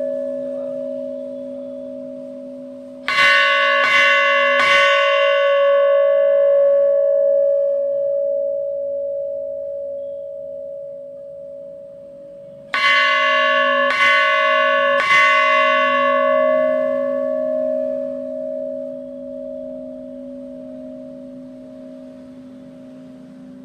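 A 125 kg temple bell struck three times in quick succession, twice, about ten seconds apart. After each group the bell rings on with a long, steady hum that slowly fades.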